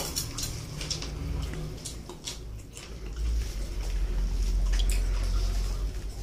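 Mutton and rice eaten by hand: wet squishing of fingers in the food, chewing and lip smacking in many short clicks, over a steady low rumble that grows louder about three seconds in.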